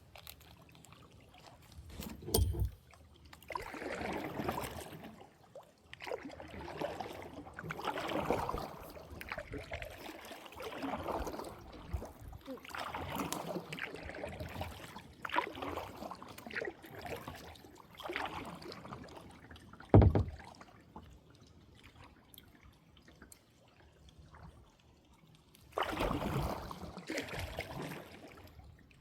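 Water sloshing and splashing in a run of repeated swells, each a second or two long, with a hard knock about twenty seconds in and a lighter one near the start.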